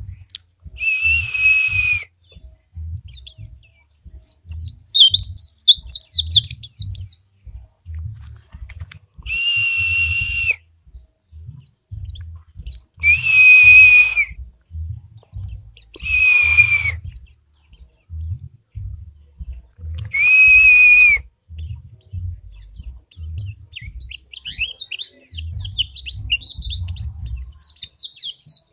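Caged yellow-breasted white-eye (pleci dakun) singing a fast, continuous twittering song. Five times it is broken by a loud, buzzy note about a second long.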